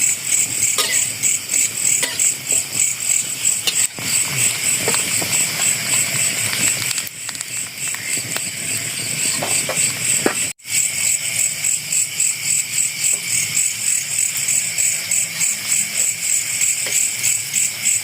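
A night chorus of crickets chirping steadily, with a fast, even, pulsing high trill over a lower hum of insects. The sound cuts out for an instant about ten and a half seconds in.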